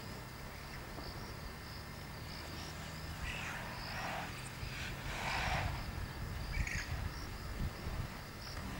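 Insects chirping in the bush: a high pulse repeating about once a second. A low hum fades out a few seconds in, and several short rushing noises fall around the middle.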